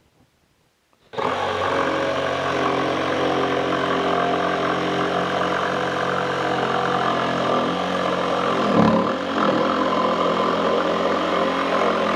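DeWalt XR cordless jigsaw (DCS334) switching on about a second in and cutting a curve through a thick wooden board on orbital setting 3: a loud, steady motor buzz with the blade chattering through the wood. About nine seconds in the pitch briefly drops and recovers as the cut loads the saw.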